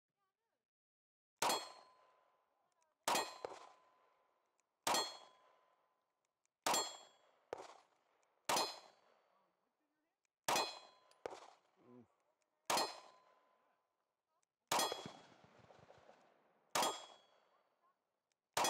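Compact 9mm carry pistol fired in slow, steady shots, about ten of them roughly two seconds apart, each hit answered by the clang of a steel target ringing on and fading.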